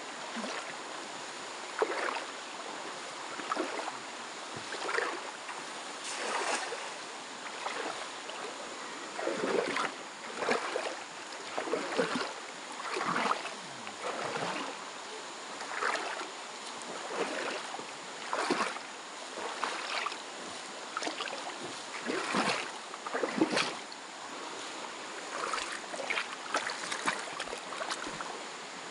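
Feet wading through a shallow, rocky river, sloshing and splashing about once a second, over the steady rush of flowing water.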